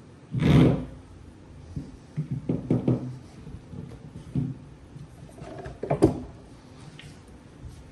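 Handling noises as the small isolator pieces are fitted into an IsoAcoustics ISO430 monitor stand: a rustle about half a second in, a quick run of knocks a few seconds in, and a sharp click near six seconds.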